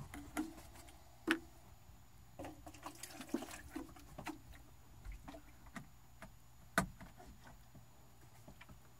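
Faint, scattered knocks and clicks, the clearest about a second in and again just before seven seconds in, over a faint steady low hum.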